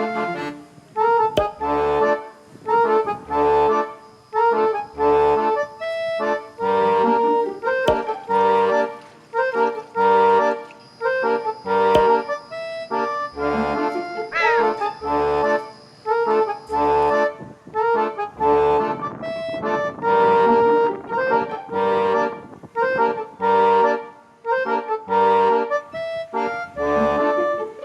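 Background music: an upbeat tune with an accordion-like lead over a steady, regular beat.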